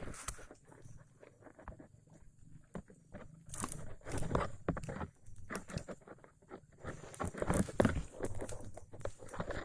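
Irregular crunching and rustling close to the microphone, in uneven clusters, busiest around the middle and again near the end.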